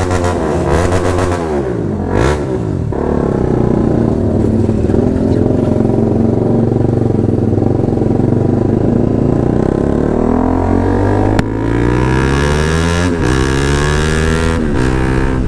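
Motorcycle engine and exhaust under way, its pitch climbing and then dropping sharply at each upshift, about three times in the later part as the bike accelerates through the gears. The exhaust has just been repaired at the roadside.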